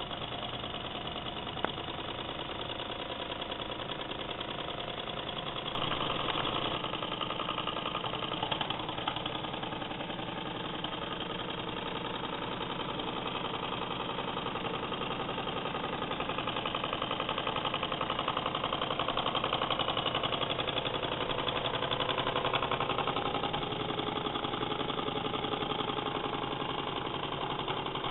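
Weeden No. 41 toy steam engine running under steam: a fast, even beat from its small cylinder. It gets louder about six seconds in.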